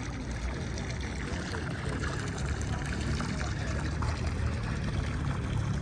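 Water spurting and trickling steadily from a leak in a park irrigation line.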